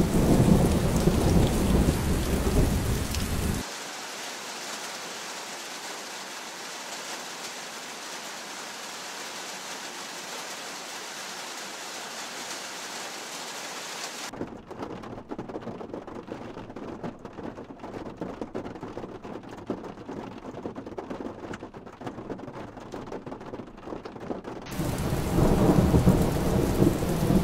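Heavy hail and rain pelting the ground and surfaces. It is loud with a low rumble for the first few seconds and again for the last few, a steady hiss between, and about halfway through it turns quieter, with scattered sharp ticks of hailstones striking.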